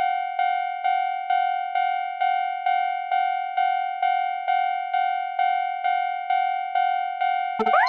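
Japanese railroad crossing warning bell ringing steadily in an even 'kan-kan' rhythm, a little over two strikes a second. A quick rising cartoon swoop cuts across it near the end.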